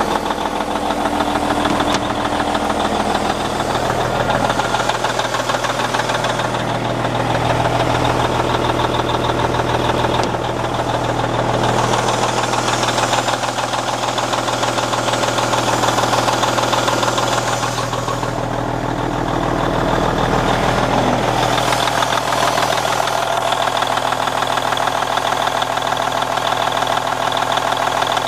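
Heavy diesel engine of a 1999 Peterbilt 379 semi-truck idling steadily.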